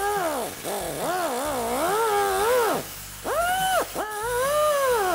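Cutoff wheel grinding into the steel head of a lower ball joint rivet. It gives a whine that sags and climbs in pitch again and again as it cuts, with a short break about three seconds in.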